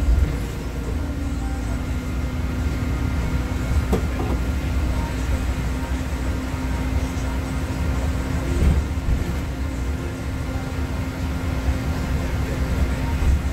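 Interior running noise of a Nova Bus LFS city bus under way: a steady low engine and drivetrain rumble with a constant hum, plus road noise. A single short click about four seconds in.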